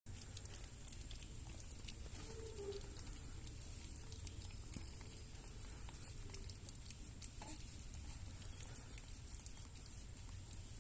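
A cat eating: faint, irregular small clicks and crunches.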